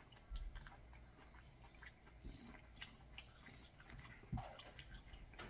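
Faint chewing of fried chicken with small wet mouth clicks, and a soft knock on a wooden cutting board a little past four seconds in as a chicken piece is dipped into hot sauce.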